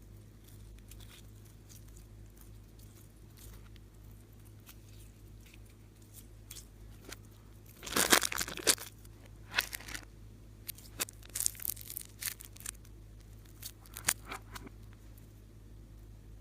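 Plastic being handled: a loud tear about eight seconds in, followed by scattered crinkling rustles.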